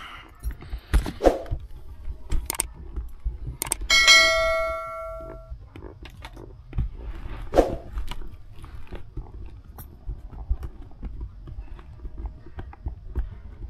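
Scattered knocks and clicks of gear being handled. About four seconds in comes a single bright bell-like ding that rings out for about a second and a half, matching the bell of a subscribe-button animation.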